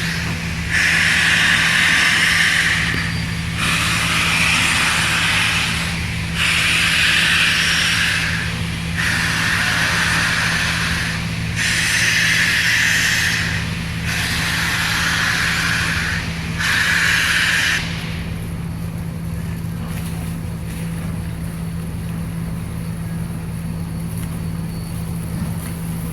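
Steam locomotive letting off steam in about seven hissing bursts, each a second or two long and evenly spaced, over a steady low hum. After about eighteen seconds the bursts stop and only a softer steady rush remains.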